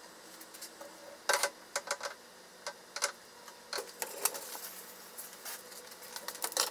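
Scattered sharp clicks and taps of kitchen handling: a white enamel dish of drained tofu being unwrapped of its paper towel and set down on the counter. The loudest cluster of taps comes about a second in.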